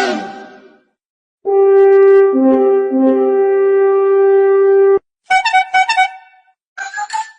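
A string of short phone-ringtone clips with abrupt cuts between them: first one long held brass-like note with a lower note briefly under it, then a quick series of beeping electronic pulses, then a short burst cut off near the end.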